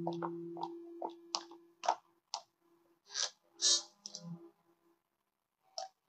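Quiet, soft irregular clicks and taps, a few per second at first, with two brief hissing rustles a little past the middle, over a faint held low note that fades out.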